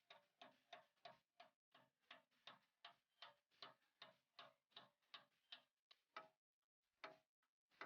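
Faint, even ticking, about four clicks a second, that stops about six seconds in, followed by two separate clicks near the end.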